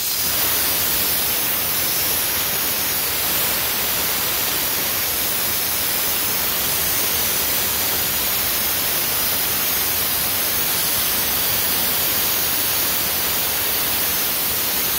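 Sandblaster nozzle blasting abrasive against a metal panel in a steady hiss, stripping old paint to bare metal.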